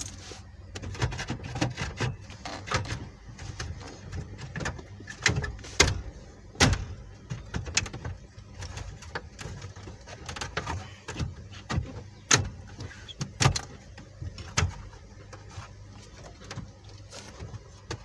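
Plastic dashboard trim being handled and pressed into place: irregular sharp clicks and knocks of plastic panels and clips, a few of them louder snaps.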